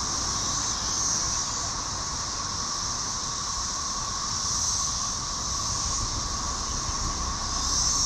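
Dense chorus of Brood XIX 13-year periodical cicadas: a loud, steady droning buzz, with a higher hissing layer that swells and fades about three times.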